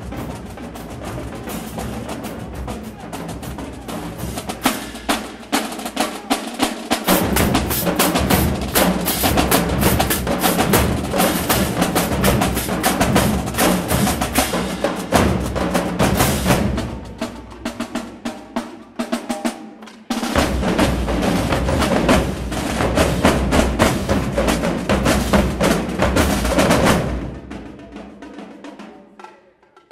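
Marching drumline playing a fast cadence on snare drums and marching bass drums. The deep bass drums come in about seven seconds in, drop out for a few seconds, then return before the playing falls away near the end.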